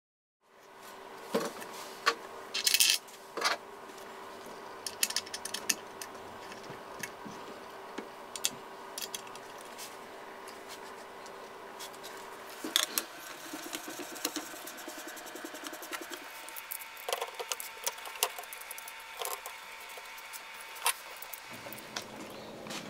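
Kral Puncher Jumbo .25 PCP air rifle being handled and reassembled, its metal action and bottle fitted into the wooden stock: scattered clicks and knocks of metal on wood and metal, some close together. A faint steady hum lies underneath.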